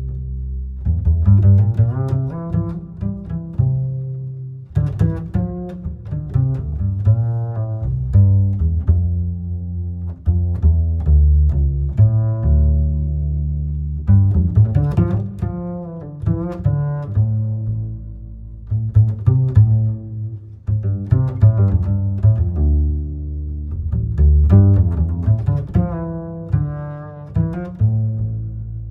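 Background music led by low strings, plucked and bowed, in short repeating phrases.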